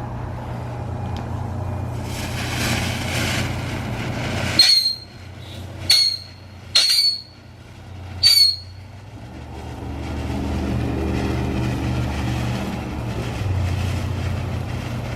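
Firework whistles: four short, loud, high-pitched whistles a second or so apart, each with a quick bend in pitch, after a brief hiss, over a steady low hum.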